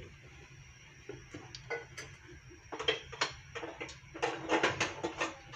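Hot cooking oil in a dry, heated nonstick wok, giving off irregular ticks and small pops. They come in two clusters, one about three seconds in and a denser one a little later.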